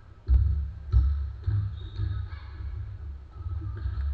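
A basketball bouncing on a hardwood gym floor: a few sharp thumps in the first second and a half, the loudest about a second in, over a steady low rumble in the hall.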